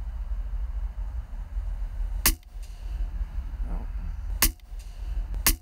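Air rifle firing: three sharp cracks, the first about two seconds in, the next about two seconds later and the last a second after that, over a steady low rumble.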